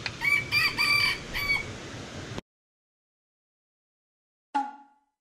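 A rooster crowing: one drawn-out crow of several rising and falling segments over a steady hiss, cut off abruptly about two and a half seconds in. Near the end comes a single short chime-like tone that fades quickly.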